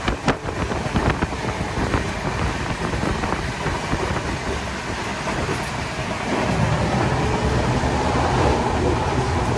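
Rajdhani Express passenger coach running at speed, heard from inside: a steady rumble and rattle with a few sharp knocks in the first second. The rumble grows louder about six seconds in.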